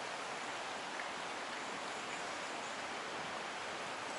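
Steady, even rushing of stream water flowing past rock.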